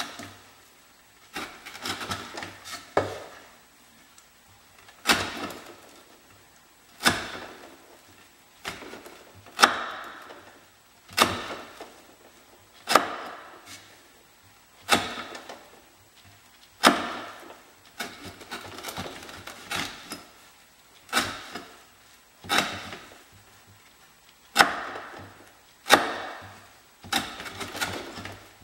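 Swamp Rat Rodent Solution knife chopping through quarter-inch sisal rope on a wooden board, over and over. Each cut is a short scrape through the fibres ending in a sharp knock as the blade meets the wood, about one cut every one and a half to two seconds.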